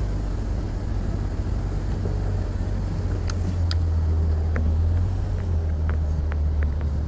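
Jeep engine pulling steadily up a dirt and rock trail, a low drone that grows a little louder about four seconds in, with a few light clicks and knocks from the trail and the vehicle over the second half.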